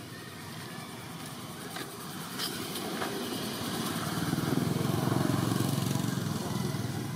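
A motor vehicle's engine droning, growing louder through the middle and easing off near the end, as if passing by.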